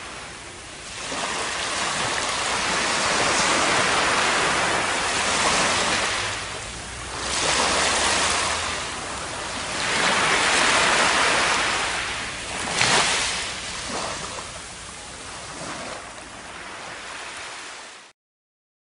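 Ocean surf washing up on a sandy beach, the hiss of the water swelling and falling away every few seconds, with one sharper splash about two-thirds of the way through. It cuts off abruptly near the end.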